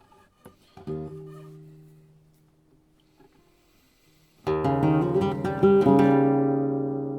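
Flamenco blanca guitar with a German spruce top and cypress back and sides: a soft chord about a second in that rings and dies away, then a loud strummed chord of several quick strokes partway through that rings on and slowly fades.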